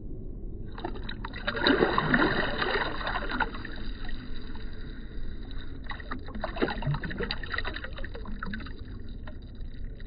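Lake water splashing and sloshing around a hand and a smallmouth bass as the fish is released at the surface, loudest about two to three seconds in, then scattered small splashes as it swims off.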